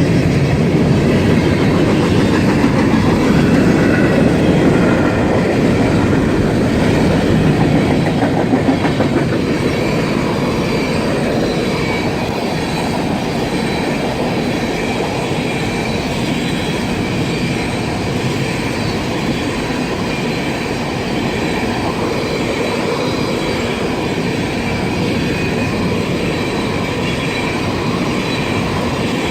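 Freight cars of a long train rolling past close by: a steady loud rumble of steel wheels on the rails, with a faint thin high squeal from the wheels. It is a little louder for the first several seconds, then evens out.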